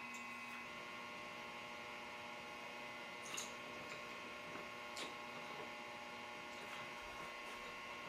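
Steady low electrical hum made of several held tones, with two short light clicks about midway through.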